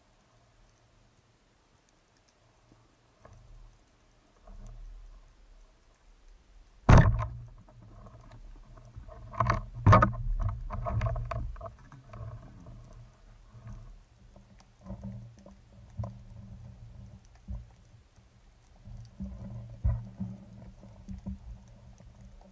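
Band-powered speargun fired underwater: near silence, then a single sharp crack about seven seconds in as the shaft is released. Two more loud knocks follow a few seconds later, then uneven rumbling and clattering as the speared sea bass is hauled in on the shaft and line.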